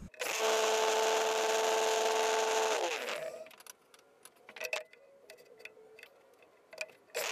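Table saw running for a few seconds, then its motor tones drop in pitch as it stops. Clicks and knocks of the MDF workpiece being handled on the saw table follow, and the saw starts up again near the end.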